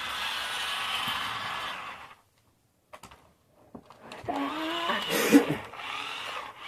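Small electric motor of a remote-control toy car whirring steadily for about two seconds, then cutting off abruptly. After a silent gap, a voice with sliding pitch comes in during the second half.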